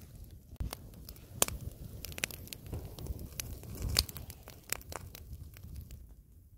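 Sausage wrapping being torn and crinkled by hand: irregular rustling with scattered sharp clicks, two louder snaps about a second and a half in and four seconds in, dying away near the end.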